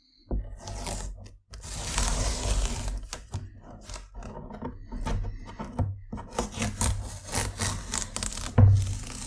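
Tape being peeled off watercolour paper: a drawn-out ripping rasp, then a run of short crackles and ticks as it is pulled away in bits.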